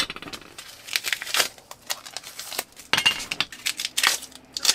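Metal jar-lid rings clicking and clinking as they are handled and set down one by one on a wooden table, with rustling of masking tape being peeled off them; one ring sounds briefly about three seconds in.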